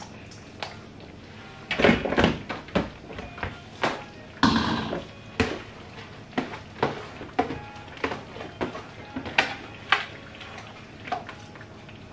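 A metal spoon knocking and scraping against a stainless-steel colander as rice is emptied into a cooking pot, with a plastic bowl handled afterwards. It is a run of sharp knocks and clicks, with two short rushes of rice falling, about two seconds in and again at about four and a half seconds.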